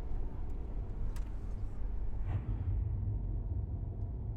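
A car driving, its engine and tyres making a steady low rumble.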